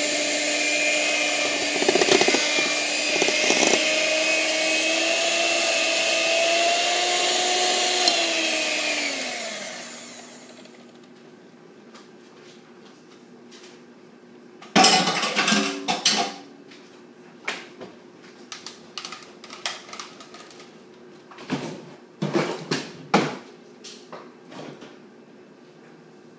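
Proctor Silex electric hand mixer running steadily with its beaters in cake batter, then switched off about nine seconds in, its whine falling in pitch as the motor winds down. After that, scattered knocks and clatter of kitchen things being handled, the loudest about fifteen seconds in.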